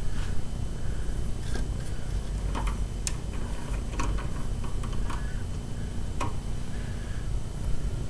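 Window blind slats clicking lightly several times over a low steady rumble; no siren is heard.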